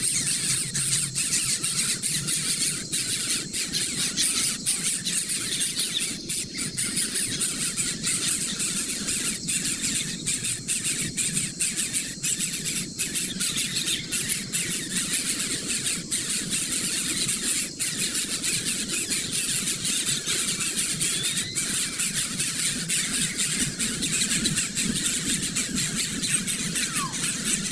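Many birds calling at once, a dense, continuous high-pitched chirping and squealing.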